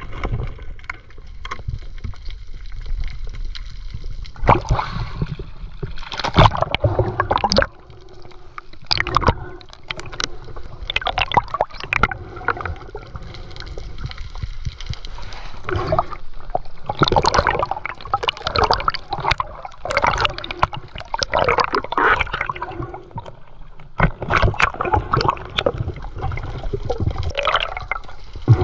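Water gurgling and sloshing, broken all through by irregular knocks and clatter.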